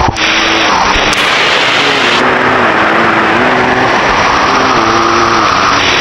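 Loud, steady roar of rushing water from a waterfall, with a sudden break just after the start.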